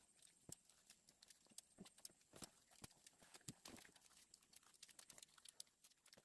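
Faint, irregular clicks and taps, several a second, over near silence.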